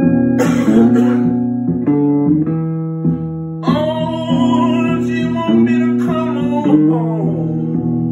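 Blues played on guitar: plucked notes and chords ring out one after another, some of them bent in pitch.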